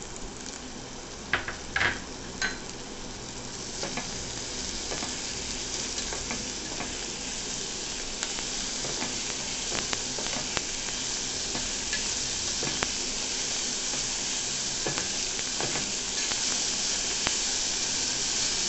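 Chopped amaranth stems frying in hot oil with onions in a pressure cooker: a steady sizzle that grows louder as the stems heat up. A few sharp taps of utensils on the cooker come about a second or two in, then scattered clicks of the steel spoon stirring.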